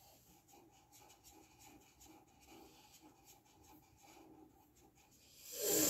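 Soft, quick scratchy strokes of a colouring tool rubbing back and forth on a colouring-book page. Near the end comes a loud breath.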